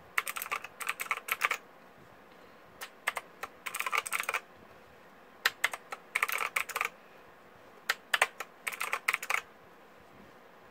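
Typing on a Redragon K555 Indrah mechanical keyboard with off-brand mechanical switches: four quick flurries of key clicks, each about a second and a half long, with short pauses between.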